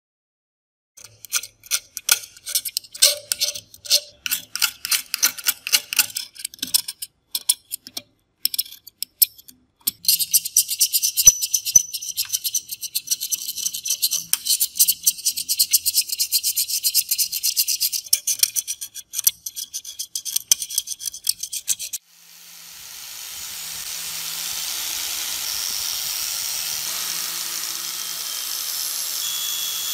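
Metal scraper scraping softened paint and rust off a rusty metal scale part: spaced strokes at first, then rapid, continuous scraping. About three quarters of the way in, a power tool's wire cup brush spins up and runs steadily against the metal, stripping the old paint and rust.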